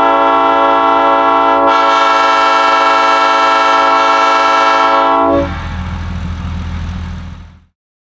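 Multi-chime train air horn blowing one long, loud chord that cuts off about five seconds in. A low rumble follows and dies away a couple of seconds later.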